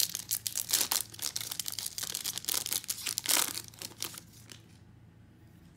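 Foil wrapper of a Topps Chrome trading-card pack crinkling as it is torn open by hand. It is a dense run of crackles that is loudest about a second in and again past the middle, and stops about three-quarters of the way through.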